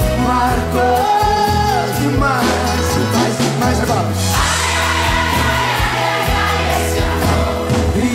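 Live sertanejo band playing a romantic song: drums with cymbals, bass and guitars under a male lead voice singing long held notes.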